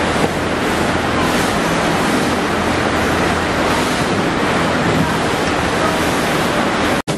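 Steady rushing noise of an assembly-line workshop, with a faint low hum underneath; it breaks off for an instant near the end.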